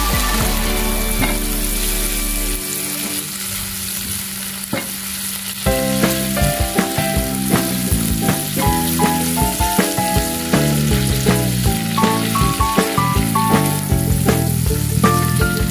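Peeled shrimp sizzling in hot oil in a nonstick pan, stirred and scraped around with a spatula. Background music with a note-by-note melody plays over it, more prominent from about six seconds in.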